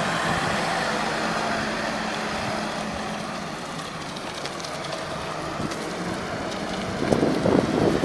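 2014 Case 580SN backhoe loader's four-cylinder diesel engine running as the machine drives and turns, a steady drone that dips a little midway and grows louder near the end.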